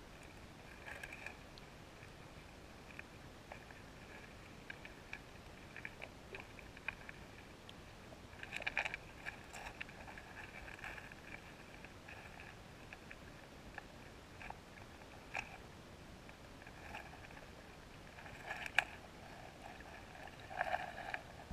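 Faint underwater river sound picked up through a GoPro's waterproof housing: scattered soft clicks and taps, with short clusters of louder ticks about nine seconds in, around nineteen seconds in and near the end.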